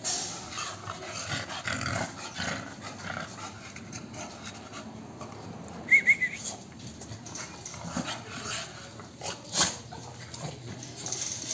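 Two American bully dogs play-fighting in a kennel, scuffling and growling. About six seconds in comes a quick run of three high chirps, the loudest sound, and a sharp click follows a few seconds later.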